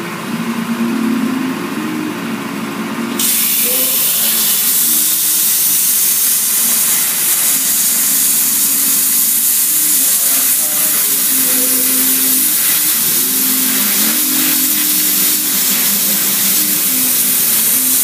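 Hypertherm Powermax30 plasma cutter's arc starting about three seconds in, then a loud steady hiss as it cuts through the steel frame, with background music underneath.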